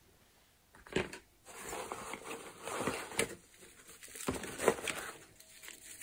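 Rustling and small clicks of gear being handled in a tan fabric bag, starting about a second in, as a black tourniquet pouch is pulled out.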